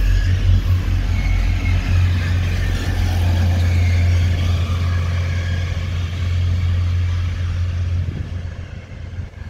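Grand Central Class 180 diesel multiple unit pulling out past the platform: a loud, steady low rumble from its underfloor diesel engines, with fainter wavering higher whines over it. The rumble fades in the last second or so as the train draws away.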